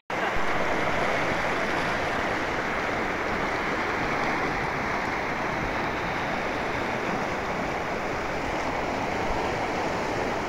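Muddy floodwater rushing down a swollen mountain river: a steady, even rush of water.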